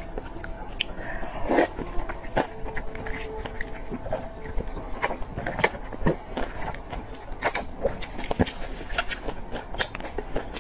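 Person slurping thick glass noodles and chewing them wetly, with many irregular sharp smacks and clicks from the mouth.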